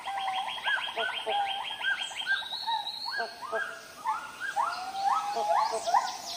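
Several rainforest birds calling over one another: a fast rattling trill for the first two seconds or so, repeated short upward-flicking notes, and longer rising whistles toward the end.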